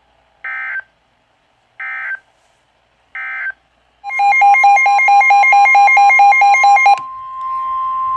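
Emergency Alert System tones. First come three short, screeching bursts of digital header data about a second apart. Then a loud, pulsing alert tone sounds for about three seconds, and a steady tone carries on more quietly after it. Together they mark the start of a new emergency alert, here the tornado warning that follows.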